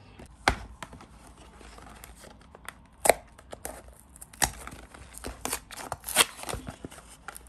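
Cardboard box being pried open by hand: the glued end flap tearing loose in a string of short rips and snaps, loudest about three seconds in and again about six seconds in, with paper rustling between.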